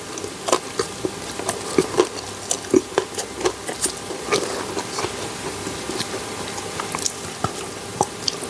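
Close-miked chewing of Cadbury Dairy Milk Silk chocolate: irregular small clicks and smacks of the mouth working the soft chocolate.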